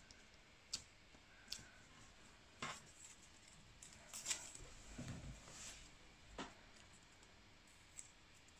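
Faint handling noises: scattered light clicks and taps, about seven spread over several seconds, with a soft low thump about five seconds in.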